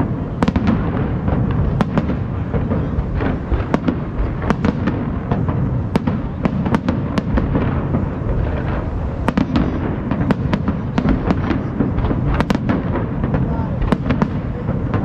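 Aerial fireworks shells bursting in quick succession: many sharp bangs, often two or three a second, over a steady low rumble from the display.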